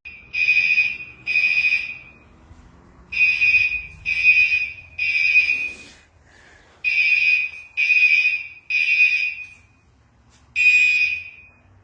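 Gentex Commander 4 fire alarm horns sounding the temporal-three evacuation pattern during an alarm test. The horns give repeating groups of three short blasts, each a steady high-pitched tone, with a longer pause between groups.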